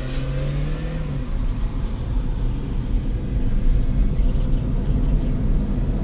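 Mitsubishi i-MiEV electric car driving, heard inside the cabin. The electric motor's whine holds a steady pitch and stops about a second in, leaving steady low road and tyre rumble.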